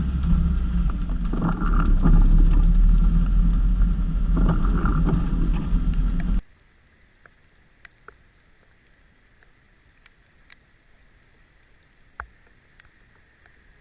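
Jeep YJ driving on a dirt trail: a loud, low engine and drivetrain rumble with two brief swells, which cuts off abruptly about six seconds in. Then a faint, quiet outdoor background with scattered small ticks and one sharper click near the end.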